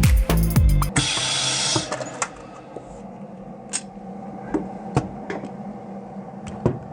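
Background music that cuts off about a second in, followed by a short hiss and then a few scattered light clicks and taps.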